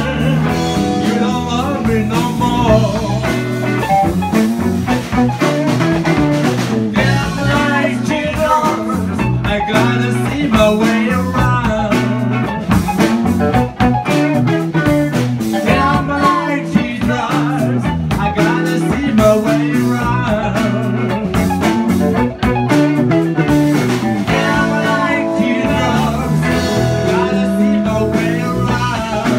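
Live blues-rock band playing, with guitar prominent throughout.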